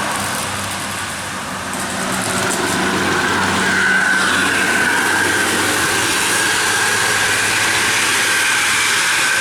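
A large bus passing close by, its engine and road noise running loud, with a steady high whine that grows louder about four seconds in.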